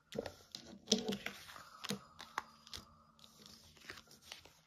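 Tarot cards being handled: irregular rustling and light clicks and taps of card stock.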